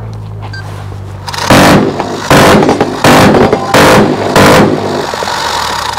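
Minigun on a vehicle-mounted remote weapon station firing five short, loud bursts in quick succession, each about half a second long, as it runs a pre-programmed sequence of targets on its own. A steady low hum comes before the first burst.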